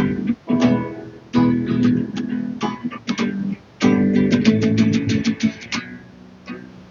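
Song with strummed guitar chords over sustained low notes, in a poor-quality recording that lacks its high end; the uploader thinks the sound was picked up from their headphones.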